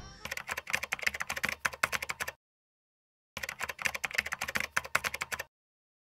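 Typing on a computer keyboard: two runs of rapid key clicks, each about two seconds long, with a gap of about a second between them.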